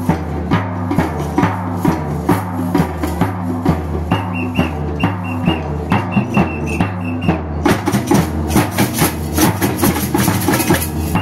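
Samba drum ensemble (batucada) playing a fast, steady groove: a surdo bass drum under tamborims struck with sticks. The strikes grow denser and brighter for a few seconds past the middle.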